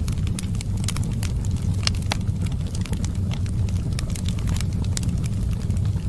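Fireplace fire crackling: irregular sharp pops and snaps over a steady low rumble.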